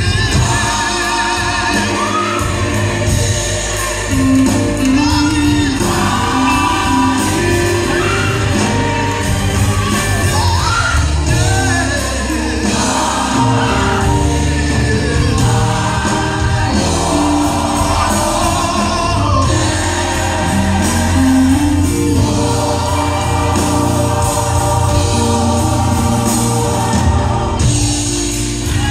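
Large gospel choir singing together in full voice, with a steady deep bass accompaniment underneath.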